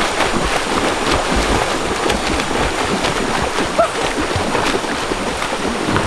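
Water splashing and sloshing without a break, full of small quick splashes.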